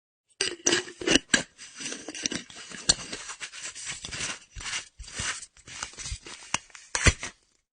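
Empty metal flask's screw cap being turned on its thread: a run of scraping and rasping metal with sharp clicks and knocks, stopping suddenly near the end.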